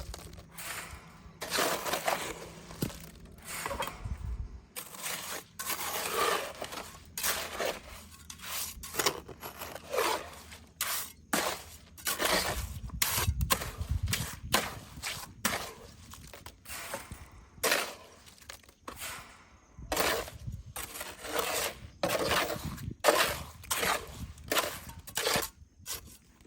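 Masonry work: a tool repeatedly scraping and scooping wet cement mortar, with short knocks as stones are set into it, at an irregular pace of about one stroke a second.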